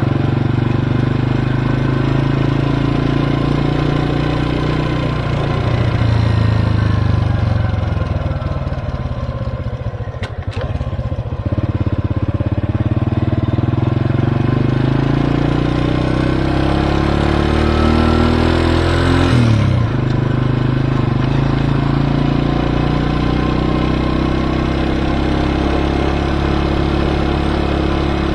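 Motorcycle engine running on the move, easing off about ten seconds in, then pulling with its pitch rising for several seconds before dropping sharply about two-thirds of the way through.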